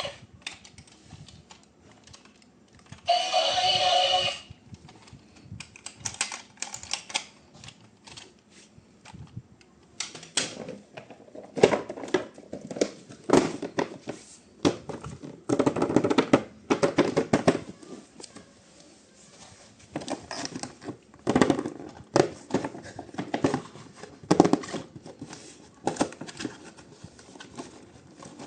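Irregular clicks, taps and rustles of plastic toy parts and packaging being handled during an unboxing, growing denser and louder about ten seconds in. A short pitched electronic tone sounds about three seconds in.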